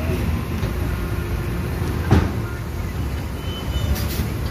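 Diesel engines of dump trucks and excavators running together, a steady low rumble, with a single sharp clank about two seconds in.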